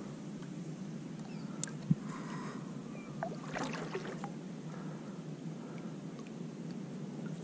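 Water swishing and trickling along the hull of a sit-on-top kayak moving on calm water, with a few splashy drips a little past halfway. A single sharp knock about two seconds in.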